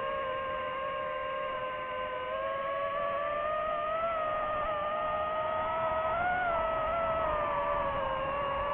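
DJI FPV drone's motors and propellers whining steadily. The pitch wavers and rises for a few seconds mid-way as the throttle changes through a banking turn.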